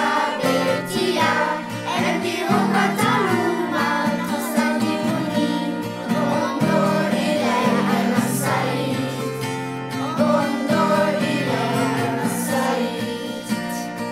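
A children's song playing: singing over instrumental accompaniment, continuous with no pause.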